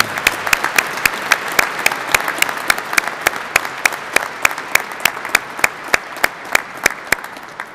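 A large audience applauding: a dense wash of clapping with one pair of hands standing out in loud, steady claps at about four a second. The applause dies away near the end.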